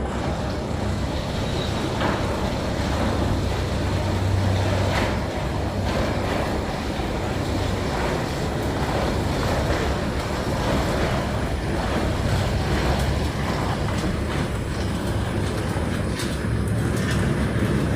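Amusement-park transportation ride in motion: a steady rumble with a low hum, broken by scattered clicks and knocks, the questionable noises of the ride.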